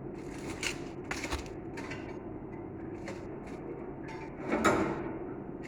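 Handling noises: several short clicks and scrapes, with one louder rustling scrape about four and a half seconds in, over a steady low hum.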